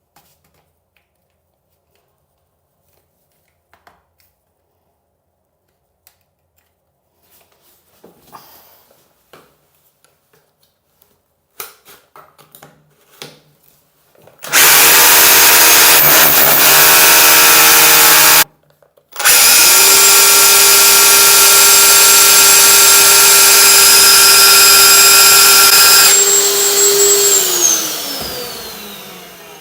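Handheld electric drill set to hammer mode, drilling into a tiled concrete wall: after some quiet handling clicks it runs loud for about four seconds, stops briefly, then runs steadily for about seven seconds before spinning down with a falling pitch.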